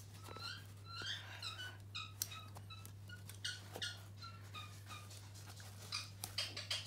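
Scissors snipping at the cloth of a small bean bag, with scattered light clicks of the blades. Short high squeaks come again and again through it, and the cutting goes slowly, the cloth harder to cut than expected.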